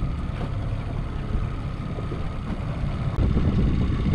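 Fishing boat's motor running at trolling speed, a steady low drone with water and wind noise over it; about three seconds in the low rumble gets louder.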